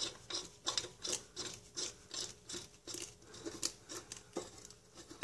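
Metal parts scraping and rubbing in short, irregular strokes, about two a second, as a Ford 3000 tractor's power steering reservoir cover is worked by hand onto its filter.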